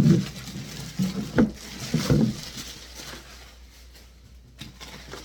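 Handling noise from a sewing machine and its parts being worked by hand: a few sharp knocks and clunks in the first two seconds or so, then quieter rustling and scraping.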